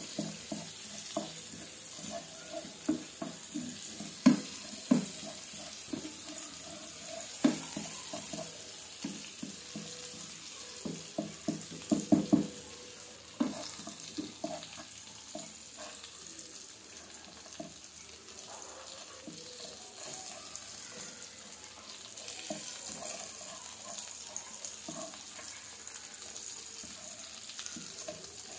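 Hilsa fish pieces and sliced onions sizzling in hot oil in a frying pan, with a wooden spatula knocking and scraping against the pan as it stirs. The knocks come often in the first half and thin out after about fifteen seconds, leaving mostly the steady sizzle.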